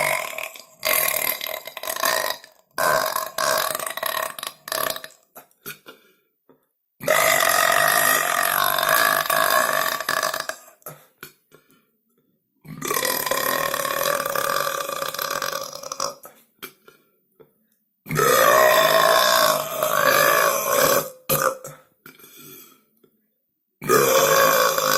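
A teenage boy burping long and loud. First comes a run of short burps, then three long drawn-out burps of about three seconds each, with another starting near the end.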